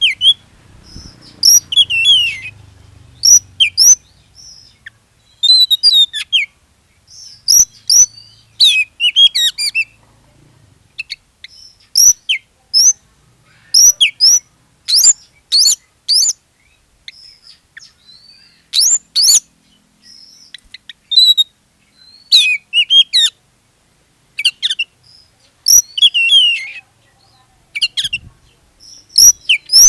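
Oriental magpie-robin in full song: repeated bursts of rapid, high whistled phrases with quick upward and downward glides, broken by short pauses. It is the kind of vigorous song played as a lure to set other magpie-robins singing.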